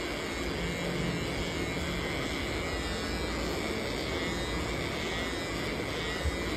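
Corded electric pet clipper running steadily as it is drawn through a Labrador's belly fur, shaving it down. A short click sounds about six seconds in.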